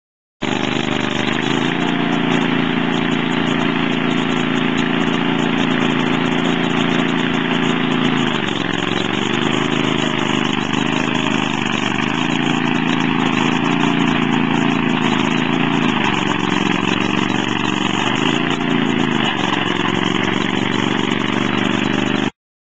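Small engine of a compact utility loader running steadily as it works a power rake attachment over bare soil. Its pitch dips briefly about four times, then recovers.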